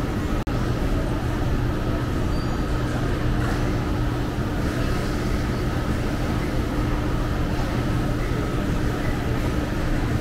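Food-centre ambience: a steady drone of ventilation fans with a low hum, under indistinct chatter of diners. There is a brief dropout about half a second in.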